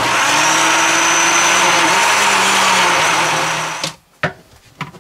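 Countertop electric blender running at a steady speed, puréeing soft cooked cabotiá pumpkin with a little of its cooking water, then switched off suddenly after nearly four seconds. A single sharp knock follows shortly after.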